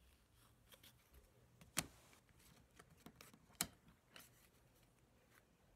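Near silence broken by a few faint clicks and taps of trading cards being handled and set down on a glass tabletop, with two sharper taps a little under two seconds apart.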